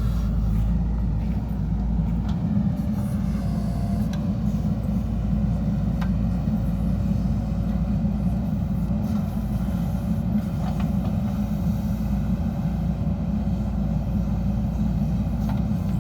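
JCB 3DX Super backhoe loader's diesel engine running steadily with a low rumble, with a few faint knocks from the machine working.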